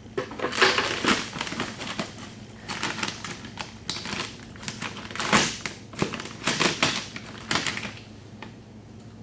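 Rustling and crinkling of a sack of trace mineral salt being opened and handled, in irregular crackly bursts that stop about eight seconds in.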